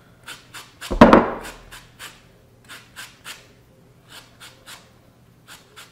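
Orange peel being zested on a hand grater over a glass bowl: repeated short scraping strokes, about two to three a second, with one louder knock about a second in.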